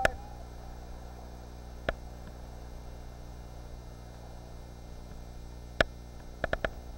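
Steady electrical hum from the camera's own recording, with no surf or splashing coming through, broken by short sharp clicks: one at the start, one about two seconds in, and a quick group of four near the end.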